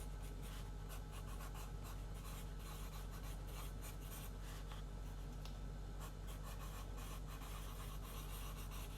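Trading cards being handled and sorted: faint, scattered rustles, slides and light taps of card stock, over a steady low electrical hum.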